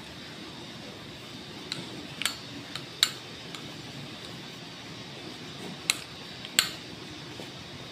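Sharp metallic clicks and taps from a stripped semi-automatic pistol slide as it is turned over and wiped with a cloth. There are about six clicks, the loudest about three seconds in and two more near six seconds, over a steady background hiss.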